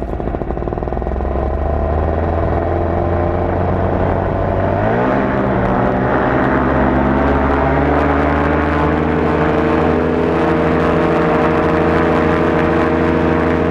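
Black Hawk 125 paramotor's two-stroke engine running in a ground test. It is throttled up about five seconds in, the pitch rising and then holding steady at the higher speed. This is a test run after carburetor adjustment, checking whether the engine still overheats.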